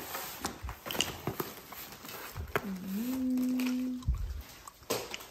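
Scattered light taps and knocks of handling things, and about midway a person hums one held note for about a second and a half, sliding up a little before it levels off.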